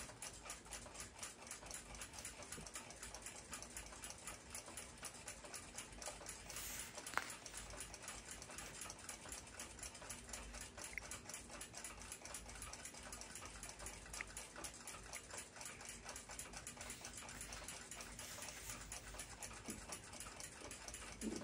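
Faint, fast, even ticking, with one sharper click about seven seconds in.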